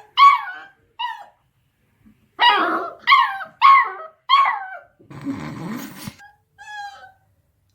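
Eight-week-old beagle puppy yipping and barking in a high voice: two short yips, then a run of four barks about half a second apart. A scuffling rustle follows for about a second, then a thin whine near the end.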